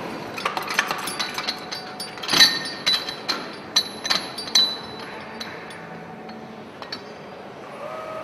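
Metal clinks and knocks of a hydraulic cylinder-head stud-tensioning tool being handled as it is dismounted: about a dozen sharp strikes with a ringing ring in the first half, the loudest about two seconds in. A steady hum starts near the end.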